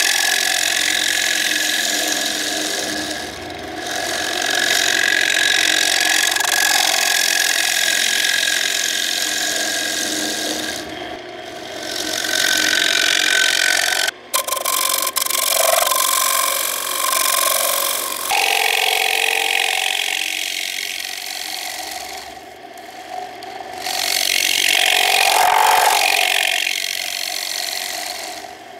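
A lathe chisel cutting the face of a spinning Korean walnut plate blank on a wood lathe: a steady hissing scrape of steel on wood, easing off and coming back several times as the cuts pause and restart.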